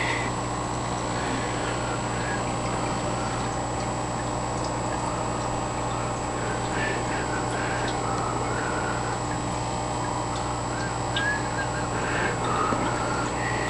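Short, scattered bird calls over a steady electrical hum, with a few louder calls near the end.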